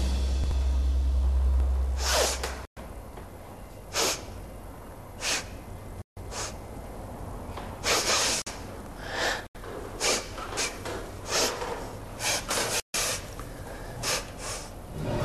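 A woman sniffing the air through her nose again and again, about a dozen short sharp sniffs at irregular intervals, trying to catch a perfume scent.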